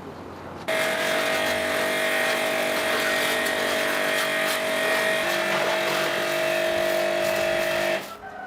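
A small electric power tool's motor running at a steady pitch, switching on suddenly about a second in and cutting off just before the end.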